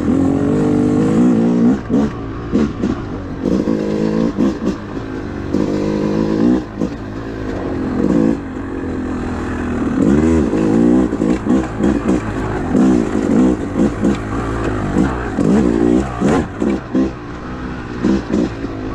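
2013 Yamaha YZ250 two-stroke single-cylinder dirt bike engine under way, revving up and down over and over as the throttle opens and closes.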